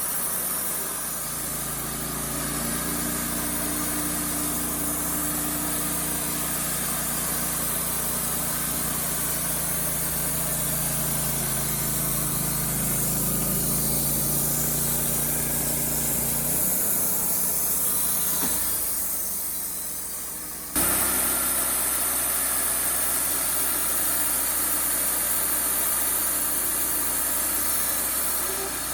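Wood-Mizer LT35HD band sawmill running, its engine droning steadily. The engine note fades out around 17 seconds in, then the sound jumps back suddenly and a little louder about 21 seconds in, and stays steady.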